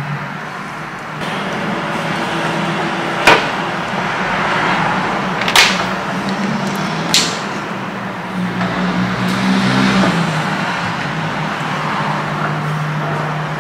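Steady rushing noise with a low hum, broken by three sharp clicks and knocks spread through the middle, as a laptop and its charging cables are handled.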